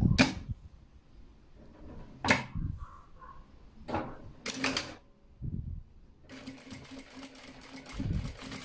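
Bruce R5 servo-motor industrial lockstitch sewing machine: three short bursts about two seconds apart, then from about six seconds in a steady run as it stitches fabric with the 3-3 reverse-stitch setting on.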